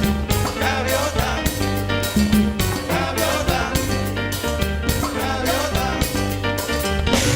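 Latin dance music with a singing voice over a steady drum beat and bass.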